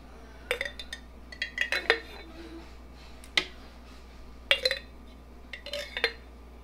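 A spoon clinking and scraping against a glass jar and the plastic bowl of a food processor as thick cream is scooped from the jar into the bowl. The sound comes in about five short clusters of clinks and knocks, with a brief ring after some of them.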